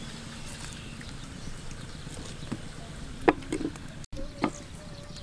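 A clay lid set onto a clay cooking pot: several sharp ceramic knocks between about three and four and a half seconds in, the first the loudest, over a steady low background noise.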